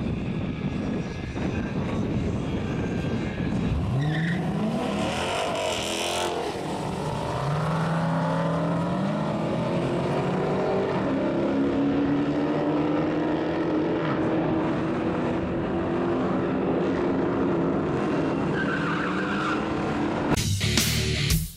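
Two Dodge Challengers idling at the starting line, then launching about four seconds in: engines revving up in rising sweeps through several gear changes as the cars run away down the drag strip, fading with distance. Rock music comes in near the end.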